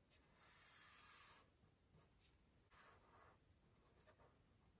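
Faint scratching of felt-tip markers drawing lines on paper: a stroke of about a second, then a shorter one about three seconds in, with a few light ticks.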